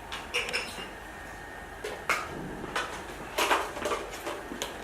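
Hard plastic and metal parts of a ventilator's hanger arm being handled and set to a new angle: about half a dozen short, scattered clicks and knocks.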